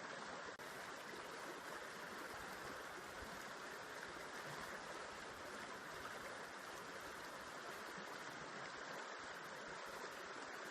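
River water flowing, a steady even rush with no breaks or changes.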